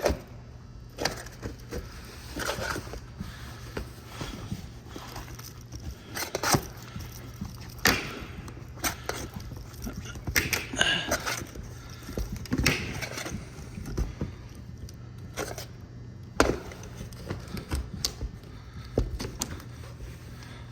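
Irregular knocks, scrapes and clatter of a camper's roof vent fan being worked loose and pried up from the roof, with a steady low hum underneath.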